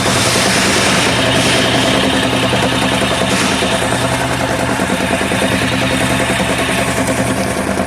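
Opel Omega A engine running steadily at idle with a rhythmic knock, which the owner takes for a failing dual-mass flywheel.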